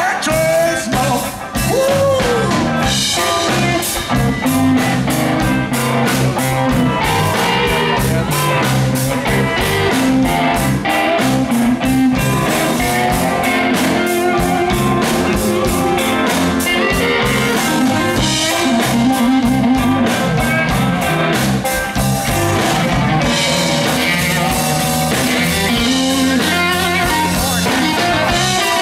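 Live electric blues band playing: guitar over bass and drum kit with a steady beat.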